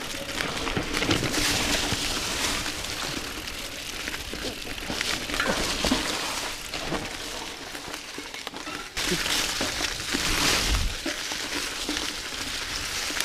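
YT Jeffsy 29 AL mountain bike rolling fast over dry leaf litter on a forest singletrack: a continuous rustling hiss from the tyres in the leaves, swelling and dipping, with frequent small knocks and rattles from the bike over roots and bumps.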